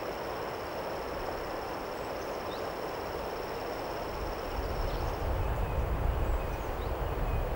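Outdoor nature ambience: a steady rushing noise under a high, steady insect trill that stops a little over five seconds in, with a few faint bird chirps. A deep low rumble comes in about four and a half seconds in.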